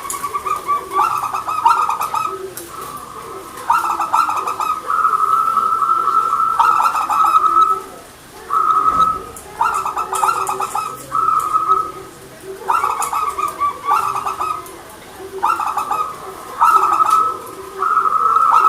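Zebra dove (perkutut) singing, repeating its cooing song phrase after phrase: each phrase is a quick run of stuttered notes ending in a longer held coo, with short pauses between them.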